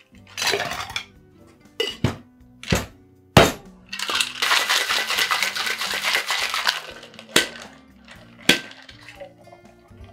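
Ice clinking and knocking into a copper Boston shaker, then about three seconds of ice rattling hard inside the sealed tins as the cocktail is shaken, followed by two sharp knocks on the shaker. Background music plays underneath.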